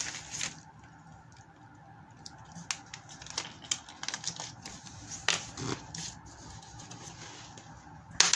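Hands handling small RC parts and their plastic packaging: a crinkle of plastic that dies away in the first half second, then scattered light clicks and rustles, and a sharp, loud crackle of clicks just before the end.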